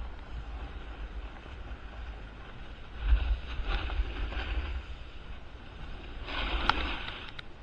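Wind buffeting the microphone at downhill speed, with the hiss and scrape of edges sliding on packed snow. It rises to louder scrapes during turns about three seconds in and again near the end.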